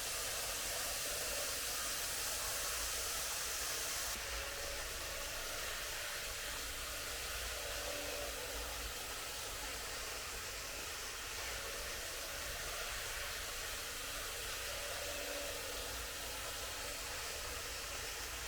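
Tomix N-scale model train running on its track laid over Q-Film sound-deadening mat: a steady whirring hiss with a faint tone that comes back every three to four seconds, as the train circles past. It cuts off suddenly at the end.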